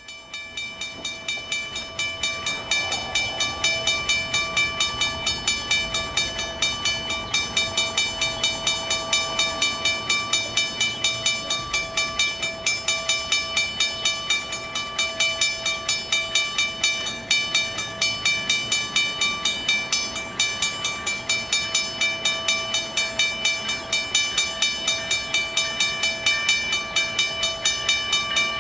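Railway crossing bell ringing steadily and rapidly, about four strikes a second, as a commuter train approaches, with a faint rumble of the train underneath.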